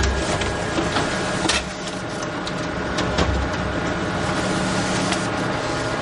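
Photocopier running: a steady mechanical whir with irregular clicks and low thumps, and a low hum that holds for a few seconds in the middle.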